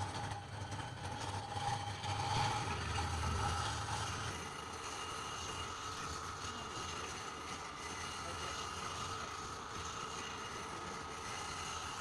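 Electric motor of a wood lathe running steadily, its hum shifting in pitch about four seconds in and then holding steady.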